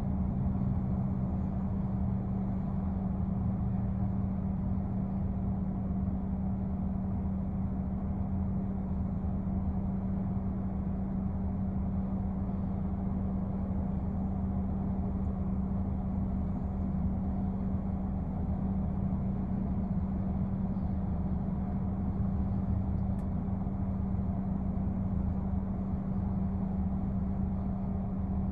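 Steady low mechanical hum with a constant drone, like an idling engine or machine.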